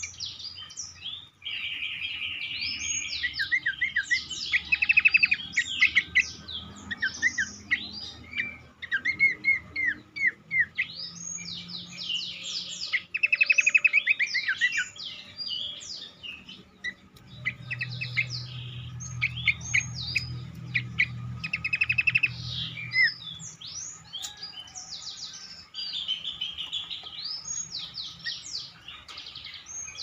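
Horsfield's babbler (cingcoang, pelanduk semak) singing a busy, varied song: runs of quick down-slurred whistled notes mixed with short buzzy trills and rapid rattling phrases.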